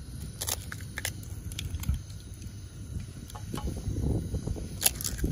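Eggs being cracked into a pan of hot butter on a portable gas stove: a few sharp shell cracks and taps over the low rush of the burner and the butter sizzling.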